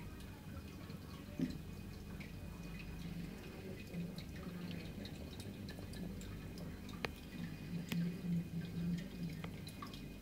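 Aquarium filter running: water trickling and dripping over a low hum that swells in places, with scattered faint ticks.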